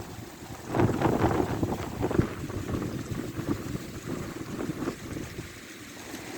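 Strong wind gusts buffeting the microphone in a rough rumble, surging about a second in and easing off toward the end.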